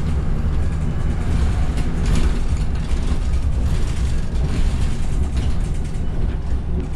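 Van Hool A300 city bus heard from inside while underway: a steady low engine and road rumble, with rattles and clatter from the body and fittings, most around two seconds in and again a couple of seconds later.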